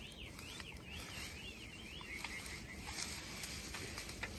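Quiet outdoor background with a faint, high, warbling animal call that sweeps up and down several times in the first couple of seconds, and scattered faint clicks and rustles.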